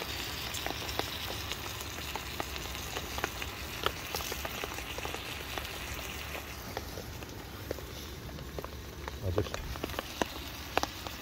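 Pork loin steaks sizzling in a frying pan on a gas canister stove: a steady hiss of frying fat with many small crackles and spits, and a couple of knocks near the end.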